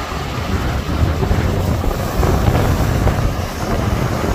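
Storm wind buffeting the microphone: a loud, gusting low rumble of noise.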